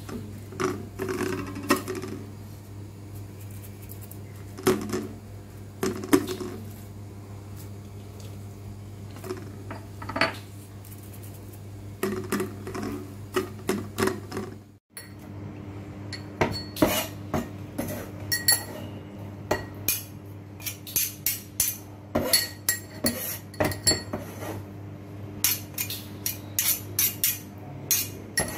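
Occasional knocks and scrapes as a salmon fillet is rubbed with salt in a stainless steel bowl, then, after a cut about halfway through, quick repeated clinking of a metal spoon in a small ceramic bowl of chopped parsley. A steady low hum runs underneath.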